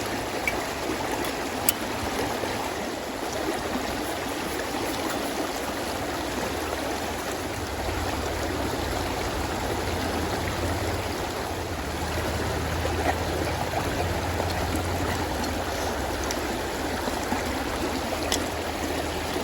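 Steady rush of flowing water, like a stream, with a few faint clicks; a low hum joins about eight seconds in.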